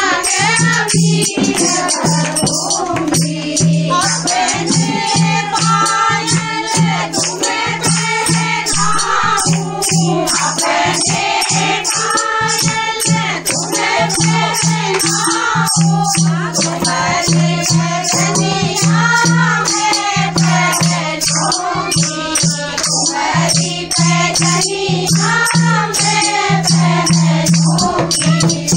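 A group of women singing a devotional Holi song together. Hand clapping and the jingling of wooden clappers set with small metal jingles keep a fast, steady beat.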